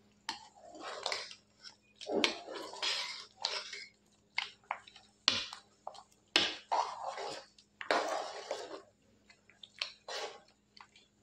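Metal spoon stirring thick chicken curry gravy in a pan, in repeated irregular scraping strokes against the pan.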